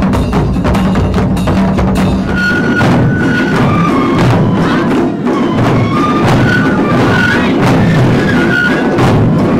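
An ensemble of Japanese taiko drums, large barrel drums, played together in a loud, driving rhythm of dense strikes. About two seconds in, a high flute melody joins over the drumming.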